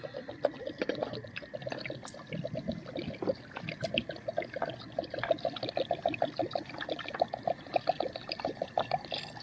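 Water being poured, gurgling in quick irregular glugs.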